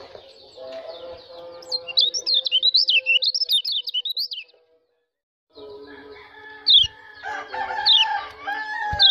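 White-eye (pleci) song: a rapid run of high, warbling twittering notes lasting about three seconds that cuts off abruptly. After a second of silence, sharp high downward chirps come about once a second over a lower, drawn-out call.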